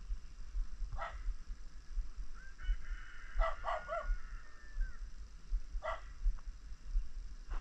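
A dog barking: a single bark about a second in, a quick run of three barks around three and a half seconds, and another near six seconds.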